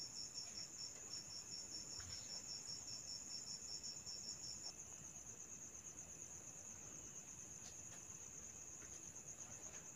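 Faint, steady high-pitched insect chirping, crickets by the sound of it, with two pulsing trills at once, one of which stops about halfway through.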